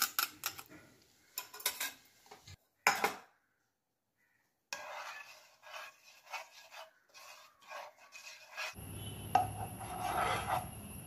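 A metal spoon scraping and knocking against a ceramic bowl, then a plastic slotted spatula stirring and scraping a sugar and milk-powder mixture in a nonstick pan, in short repeated strokes. The sound drops out briefly about three seconds in, and near the end a steady low hum runs under the stirring.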